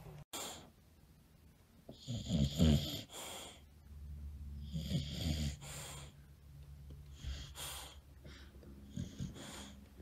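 English bulldog snoring as it dozes off sitting up: about four rough, rattling snore breaths a couple of seconds apart, the loudest about two seconds in.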